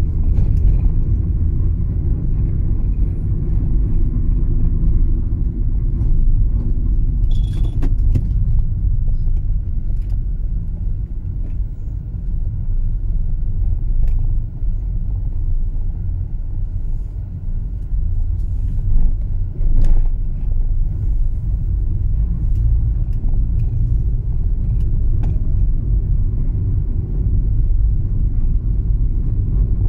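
Steady low rumble of a car driving at low speed, engine and tyre noise heard from inside the cabin, with a few faint clicks and taps.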